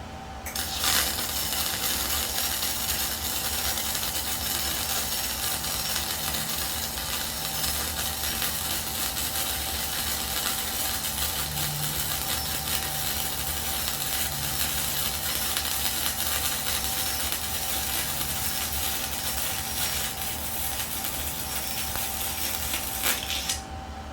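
Electric arc welder laying a weld bead: a steady crackling sizzle that starts about half a second in, runs for roughly 23 seconds and cuts off suddenly just before the end.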